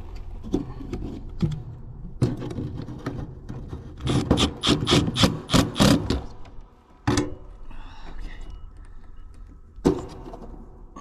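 Hand-tool and handling noise while an electrical contactor is being removed from a heat pump's heat kit: scattered clicks, a quick run of about eight scraping strokes in the middle, and sharp knocks near the end.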